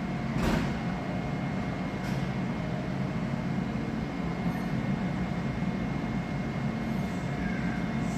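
Kintetsu 20000 series 'Raku' electric train standing at the platform, its equipment giving a steady hum with a few constant tones, and a short hiss of air about half a second in.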